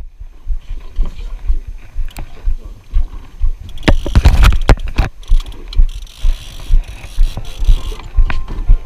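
Deck noise on a small fishing boat at sea: wind buffeting the microphone and water slapping the hull in irregular low gusts, with scattered knocks and rattles of gear and handling. Background music fades in near the end.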